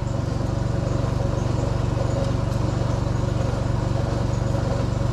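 A machine running steadily: a low hum with a fast, even pulse and no change in pitch.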